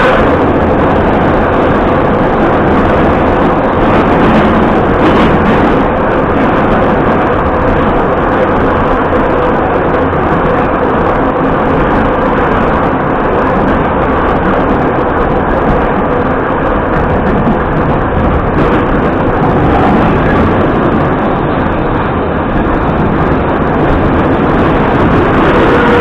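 Loud, steady running noise of a Moscow Metro retro train heard inside the carriage as it travels through the tunnel: wheels on the rails and running gear, with a faint steady whine near the end.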